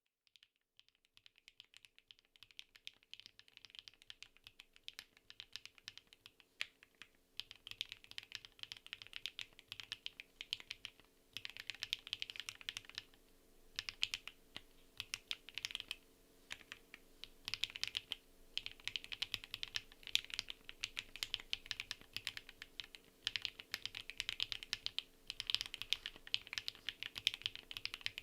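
Mechanical keyboard with HMX Lucky linear switches, aluminium plate and PBT keycaps, typed on: steady runs of fast keystroke clacks with brief pauses, starting slow and picking up after the first few seconds.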